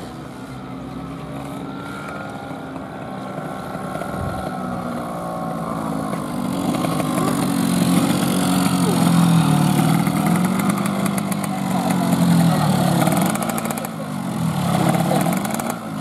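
Racing underbone motorcycle engines running hard and growing louder about halfway through, their pitch rising and falling repeatedly with throttle and gear changes.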